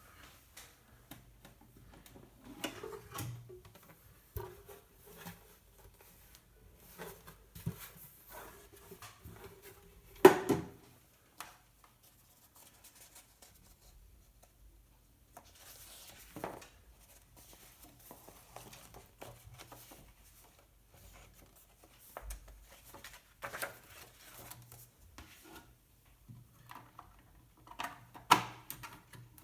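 Hermes Baby portable typewriter being worked by hand: irregular mechanical clicks, clunks and rattles, with one loud clack about ten seconds in.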